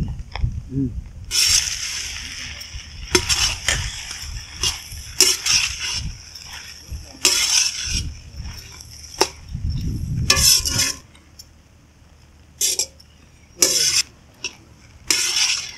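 A steel spatula scraping and clanking against a large wok as fried rice is stirred and tossed, in irregular strokes from a fraction of a second to about a second long.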